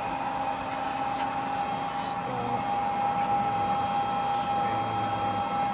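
Accurpress hydraulic press brake's pump running: a steady mechanical hum with a constant high whine.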